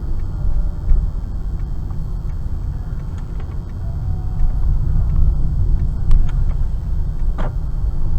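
Steady low rumble of a car driving at low speed, heard from inside the cabin, with a few faint clicks.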